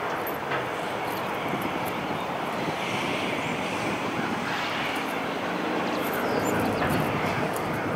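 Norfolk Southern diesel-electric locomotive running at low speed as it approaches with a work train, its engine making a steady drone.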